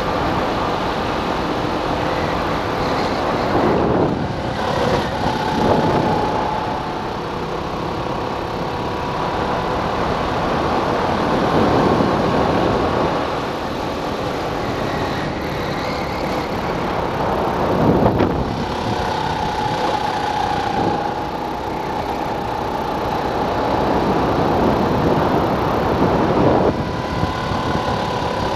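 Go-kart engine running at speed on track, its pitch rising and falling as the throttle comes on and off through the corners, under a heavy rush of wind and road noise with several louder surges.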